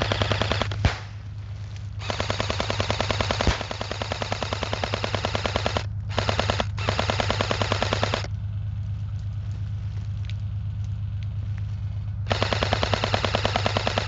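Airsoft electric gun (AEG) firing on full auto in several long bursts: a rapid, even clatter of the gearbox cycling, with a quieter stretch in the middle where only faint scattered shots are heard.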